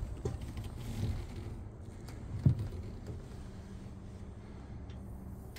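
A low rumble with one dull thump about two and a half seconds in, then a faint steady hum.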